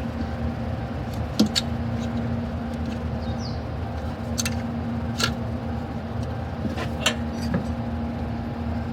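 Small motorcycle engine running steadily at idle, with several sharp clicks over it.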